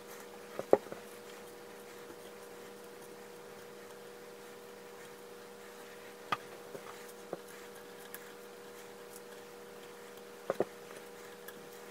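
Muslin fabric handled and pressed down onto the gripper needles of a punch needle frame, with a few short taps and clicks: the sharpest about a second in, and a quick pair near the end. A faint steady hum runs underneath.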